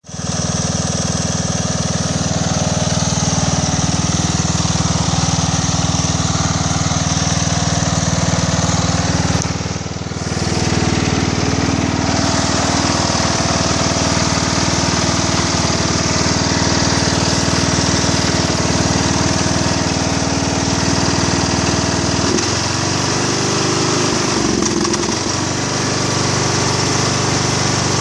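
Husqvarna CHT 130 hydrostatic ride-on mower running steadily while mowing. The level dips briefly about ten seconds in, and the engine note wavers and shifts pitch for a few seconds past the twenty-second mark.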